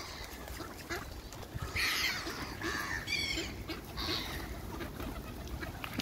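Ducks quacking among a feeding flock of waterbirds, with a cluster of harsh calls between about two and four seconds in. A few short wing-flap clicks come through as well.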